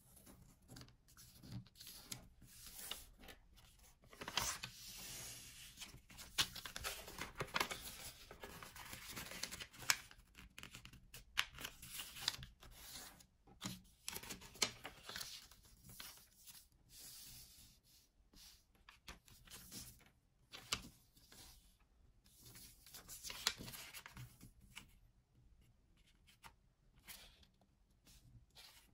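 Origami paper being handled and folded by hand: irregular crisp rustles, swishes of the sheet sliding on the table and small taps as creases are pressed, quieter near the end.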